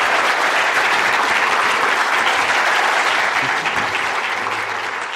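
Audience applauding: dense, steady clapping at the end of a lecture, slowly fading out over the last second or two.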